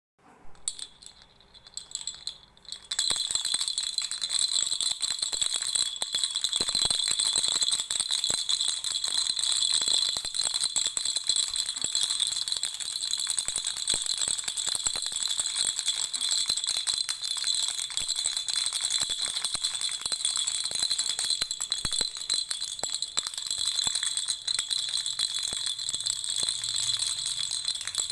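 Lollipop-shaped baby rattle shaken without a break in a dense, bright, high-pitched rattle. It starts about three seconds in, after a few faint, scattered shakes.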